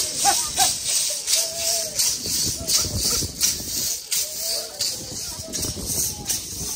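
Gourd maracas shaken in a steady dance beat, about two shakes a second, by Pankararu Praiá masked dancers, with voices chanting over the rattling.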